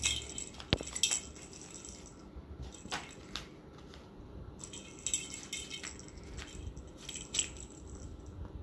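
Bell inside a small cat's toy ball jingling in short, irregular bursts as a kitten bats it around.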